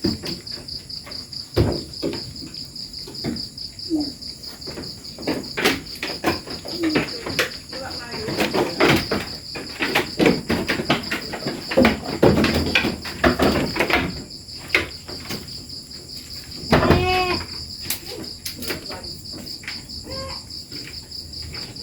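Steady high-pitched chirring of crickets, with scattered clicks and knocks. About seventeen seconds in a goat kid bleats once, and a fainter bleat follows about three seconds later.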